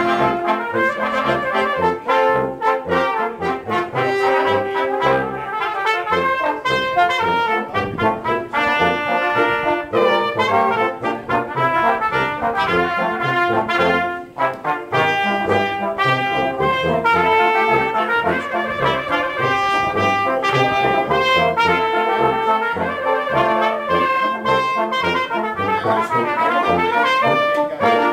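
Live brass ensemble, with trumpets and tuba, playing a piece of music continuously, with a short break in the phrasing about halfway through.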